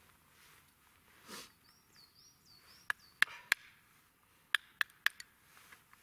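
Knife splitting and cutting small sticks of wood into kindling: seven sharp wooden knocks and cracks in two groups, three about halfway through and four near the end. A small bird chirps four quick notes just before the first group.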